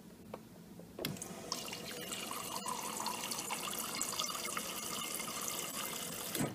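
Water streaming steadily from the door dispenser of a 1998 Kenmore side-by-side refrigerator after a click about a second in, stopping near the end: the dispenser working again on its newly refitted switch.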